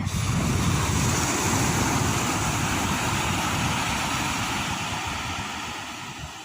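Sea surf washing in: a broad, even hiss of breaking water and foam that fades away over the last second or so.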